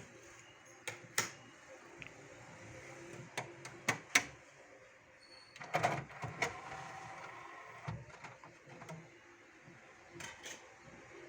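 Scattered sharp clicks and knocks, a dozen or so in small clusters, over a faint background hiss.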